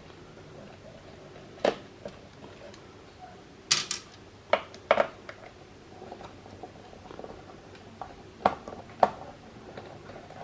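Screwdriver and small screws clicking and tapping against the Xbox One S console's parts as the power-supply screws are taken out: a handful of short, sharp clicks, irregularly spaced.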